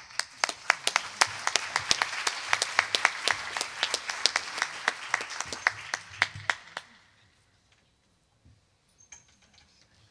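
Audience applauding, a dense patter of hand claps with some sharp single claps standing out, dying away about seven seconds in.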